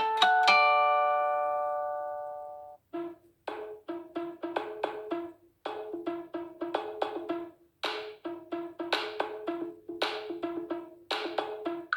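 Samsung Galaxy J7 (2017) phone tones. A chiming tone rings out and fades away over the first three seconds. Then a ringtone of quick, wood-block-like percussive notes begins, playing a short repeating phrase.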